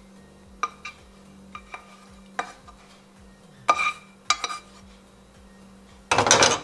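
Utensil clinking and scraping against a granite-coated frying pan and a ceramic bowl as pasta is served out, with several short sharp clinks. Near the end comes a brief, louder clatter as the pan is moved back over the stove grate, all over a steady low hum.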